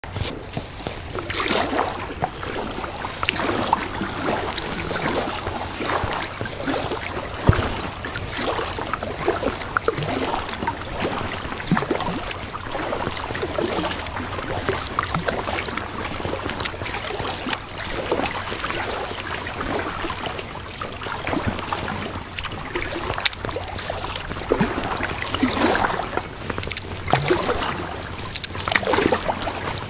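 Kayak paddle strokes in calm sea water: irregular splashes and trickling water, one every second or two.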